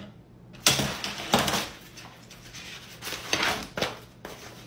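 Sheets of paper being leafed through by hand, a series of short rustling swishes.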